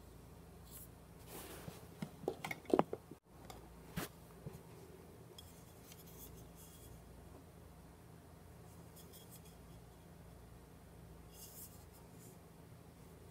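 Compact fluorescent bulbs handled in the fingers: a cluster of light clicks and knocks from the plastic bases and glass tubes about two to four seconds in, then soft rubbing and scraping as a bulb is turned over, over a faint steady hum.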